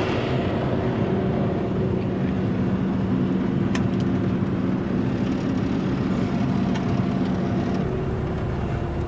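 Diesel engine of a Bobcat T870 compact track loader running steadily at a constant speed: a continuous hum over a low rumble. The hum's pitch shifts slightly about eight seconds in.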